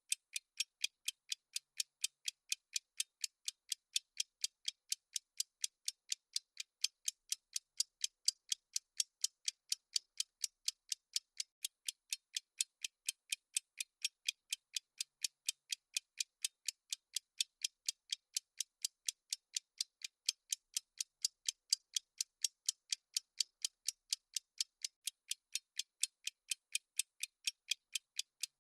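Countdown timer's clock-tick sound effect: fast, even, high-pitched ticks, about three a second, ticking steadily.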